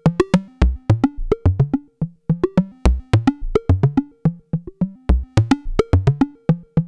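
Eurorack synthesizer sequence: a square-wave oscillator played through a Make Noise LxD vactrol low pass gate. The top channel is struck by triggers and the bottom channel is swept by control voltage, giving short plucked, percussive notes at changing pitches, several a second, with occasional deep low notes.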